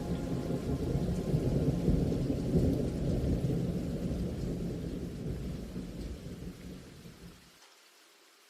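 Rolling thunder rumbling over steady rain. It is loudest about two seconds in, then dies away and is almost gone by the end.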